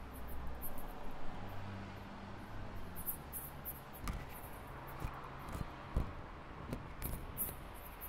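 Crickets chirping in short, high-pitched pulses, several a second. A low hum runs under the first half, and a few sharp knocks sound from about halfway, the loudest about six seconds in.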